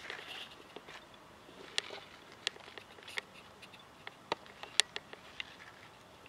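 Scattered light clicks and ticks, about a dozen at irregular intervals, the sharpest one nearly five seconds in, over a faint steady background.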